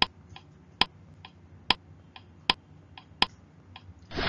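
Ticking clock sound effect: a sharp tick a little under once a second, with a fainter tock between each pair.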